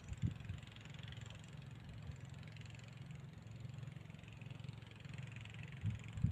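A faint, steady low engine hum, like a motor idling, with a brief knock just after the start and another near the end.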